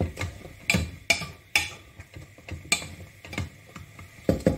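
Metal spoon knocking and scraping against the inside of a steel pressure cooker while onion-tomato masala is stirred and fried in it: irregular sharp clicks, about one a second, with a quick pair near the end.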